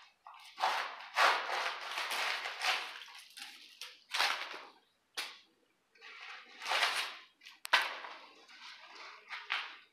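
Electrical wires being pulled through conduit, the cable insulation sliding and rubbing with irregular hissing swishes, pull after pull with short pauses, and a sharp click about three-quarters through.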